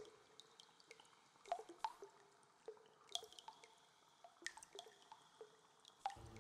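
Quiet water drips: single drops plink at irregular intervals, two or three a second, each with a short pitched ring.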